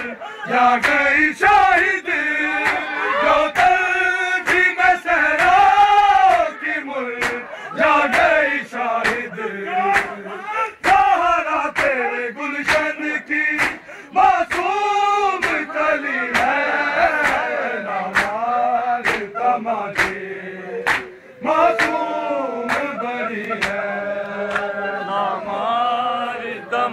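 Men's voices chanting an Urdu nauha (mourning lament) in unison, led by a reciter, with sharp hand-slaps of matam (chest-beating) keeping an even beat about one and a half times a second.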